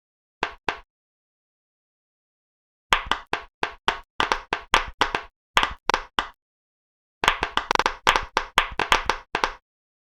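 Silicone pop-it fidget bubbles being pressed, a quick series of sharp pops in bursts of several a second. Two short pops come just after the start, then two longer runs of popping follow after stretches of dead silence.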